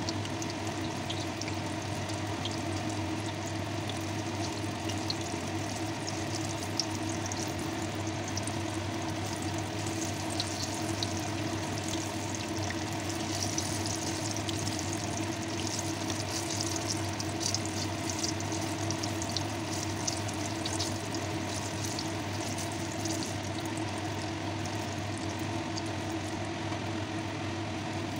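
Breaded eggplant slices sizzling and crackling in hot oil in a frying pan, the crackle busier for a while in the middle. A steady low hum runs underneath.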